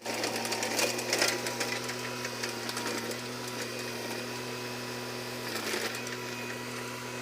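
Mini excavator's engine running at a steady speed, with a few short knocks and rattles from the machine working about a second in and again near six seconds.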